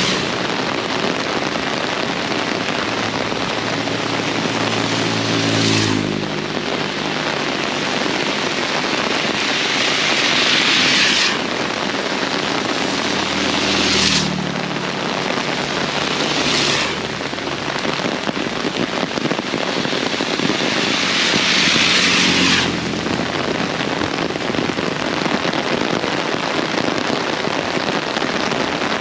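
Heavy rain pouring steadily, with the engines of passing road vehicles humming under it near the start and again around the middle. The sound changes abruptly several times.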